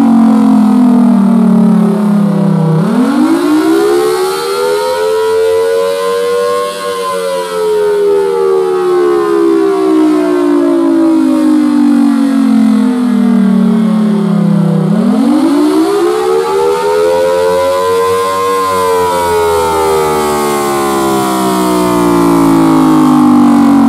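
Federal Sign & Signal Thunderbolt 1003 rotating-horn siren sounding a wail. Its pitch slides slowly down, sweeps quickly up to a peak, then slides slowly down again, twice in about twenty-four seconds.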